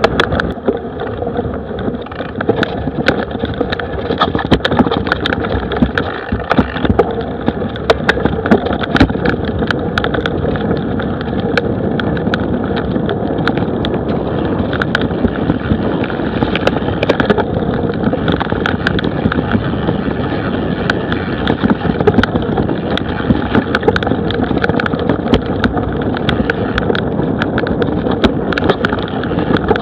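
Mountain bike riding over a rough dirt and grass trail: steady rush of wind on the microphone and tyre rumble, with frequent sharp rattles and knocks as the bike and the mounted camera jolt over bumps.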